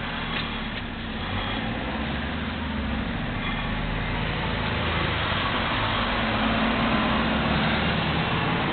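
A road vehicle's engine running nearby, a steady low hum that grows gradually louder.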